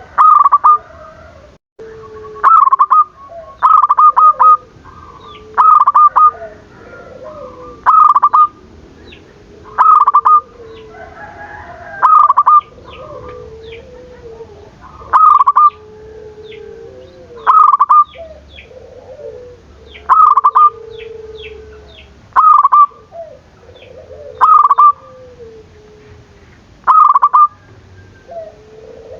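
Zebra doves (perkutut) singing: a loud, short cooing phrase repeated about every two seconds, with softer, lower coos in between and short high chirps from other birds.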